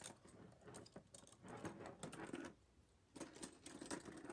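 Faint metal clicks and small rattles of Schrade police handcuffs being handled while their lock is picked, easing off briefly around three seconds in.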